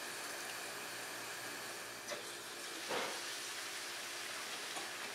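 Dielectric oil flushing on a die-sinking EDM machine: a steady hiss of fluid jetting up through the hole in the hardened steel part, with a couple of faint knocks around the middle.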